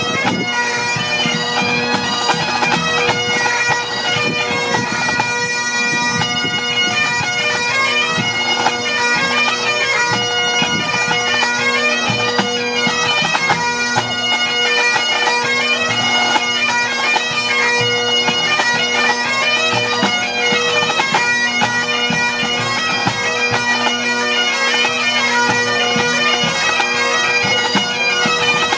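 A pipe band playing: Great Highland bagpipes carry a melody over the drones' steady hum, with snare and tenor drums playing along.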